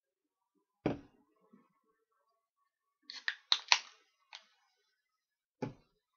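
A glass and a beer can knocked down on a tabletop, once about a second in and again near the end, with a quick run of sharp clinks in between as the shot glass and can are handled.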